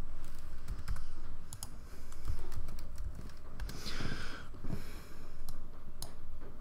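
Computer keyboard keys clicking as a few shortcut keys are typed, one keystroke at a time.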